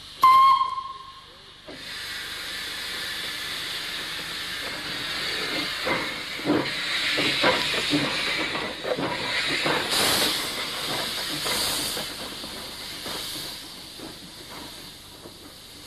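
Small steam tank locomotive giving a short whistle toot, then steam hissing steadily from its cylinders, with uneven exhaust chuffs coming in from about five seconds as it pulls away.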